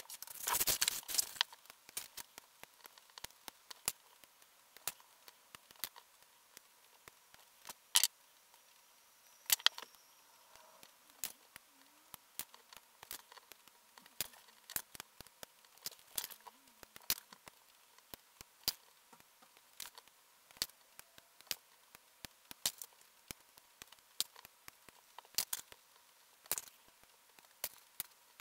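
Hobby nippers snipping plastic model-kit parts off their runners: a string of short sharp clicks, roughly one to three a second. A brief noisy burst comes at the very start.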